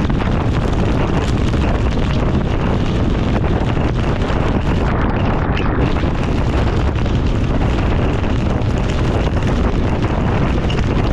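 Steady wind rushing over the microphone of a camera on a motorcycle moving at speed, heaviest at the low end with no breaks.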